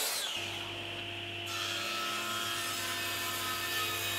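A Bosch plunge track saw cutting hardwood briefly at the start, with a falling whine. Then a table saw runs steadily, its motor and blade giving a constant hum.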